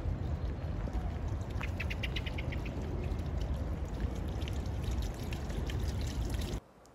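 Garden ambience with a steady low rumble and hiss. About a second and a half in, a bird gives a quick run of about eight short chirps. The sound cuts off suddenly near the end.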